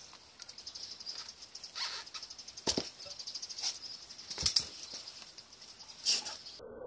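Trials bicycle drivetrain ticking rapidly and evenly, a freewheel-style ratchet, with three sharp knocks about a second and a half apart in the second half.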